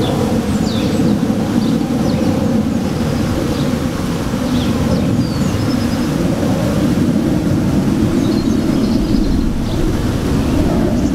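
Honeybees buzzing in a steady, dense hum at a busy hive entrance, many bees flying out on their spring cleansing flight. Faint short high chirps sound now and then above the buzz.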